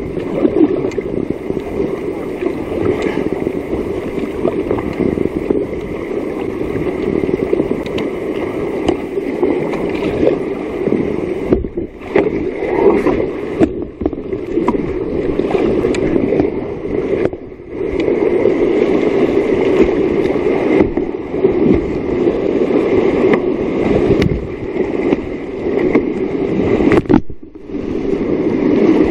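Whitewater rapids rushing and splashing around a kayak as it is paddled downriver. The steady rushing noise dips out briefly a few times.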